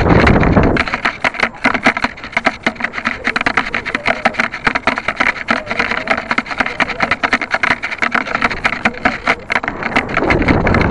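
Wind buffeting the microphone of a small keychain camera strapped to a model rocket's airframe as it descends. A fast, irregular crackling rattle runs on throughout, with heavy low rumbling gusts in the first second and again near the end.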